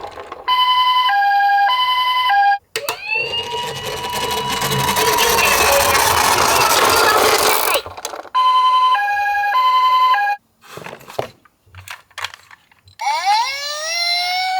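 Electronic siren of a toy ambulance. It plays a two-tone hi-lo alternation, then a tone that rises and holds with a rushing noise under it, then the hi-lo alternation again. A few clicks follow, and near the end another rising wail begins.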